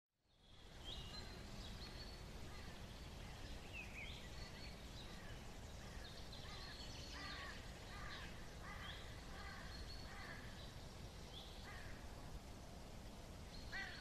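Faint outdoor woodland ambience: birds calling, with many short chirps and quick downward-sliding calls, over a low steady rumble.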